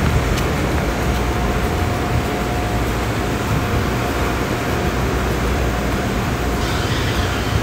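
Car wash vacuum station's suction motor running steadily, a constant rushing noise with a faint steady whine.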